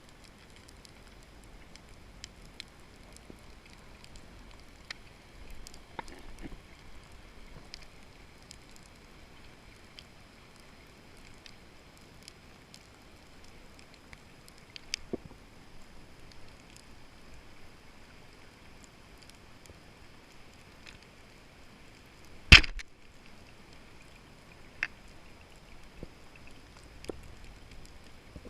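Underwater sound: scattered faint clicks and crackles throughout, and one sharp, loud shot about three quarters of the way through, a speargun firing.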